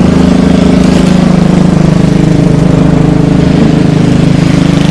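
Small petrol engine of a yard tool running steadily at speed while cutting grass.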